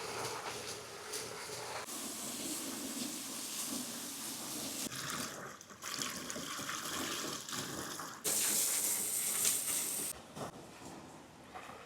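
Water rushing and splashing down waterpark slides, heard as a string of short takes that change abruptly every couple of seconds. The loudest stretch is a bright, hissing gush about two-thirds of the way through.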